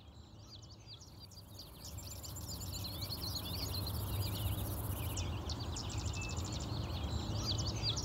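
Countryside ambience of many small birds chirping and singing at once over a steady low rumble, fading in from quiet over the first few seconds. A faint high hiss stops about five seconds in.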